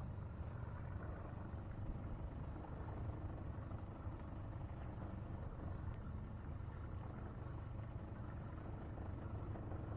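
Pontoon boat's outboard motor running at slow idle as the boat creeps along at about 2 mph: a steady low rumble.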